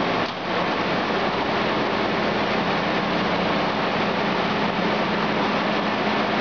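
Perfect 1000 high-production textile carding machine running: a steady mechanical noise with a constant low hum, dipping briefly just after the start.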